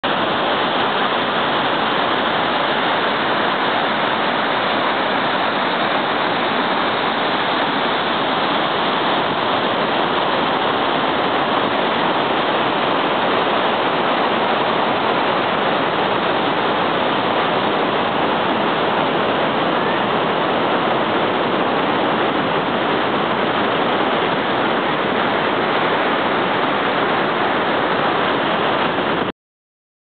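Gullfoss waterfall on the Hvítá river: a loud, steady rush of white water tumbling over the rock steps. It cuts off abruptly just before the end.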